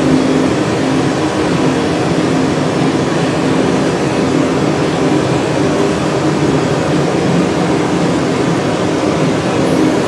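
Steady roar of the gas burners of a borosilicate glass furnace and glass lathe, with a faint low hum under it.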